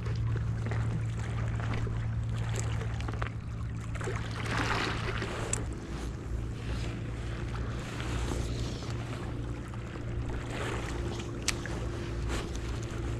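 A steady low motor drone, with a few sharp clicks near the end as a spinning reel is handled.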